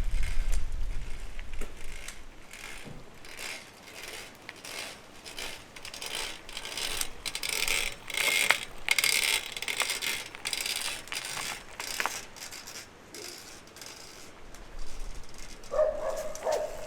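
Shimano XT FH-M8110-B Micro Spline rear hub creaking under pedalling: a run of sharp, irregular creaks and cracks, a sign the freehub needs re-greasing. A brief pitched sound comes near the end.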